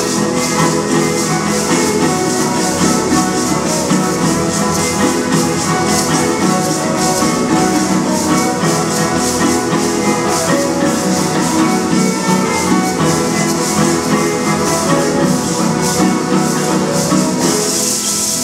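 Violin and guitar playing a Teenek dance tune, with a steady high shaking rhythm running over the strings.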